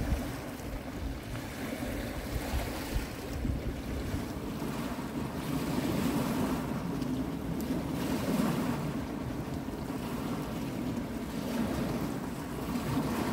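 Small sea waves washing onto a pebble shore, a steady surf with wind buffeting the microphone.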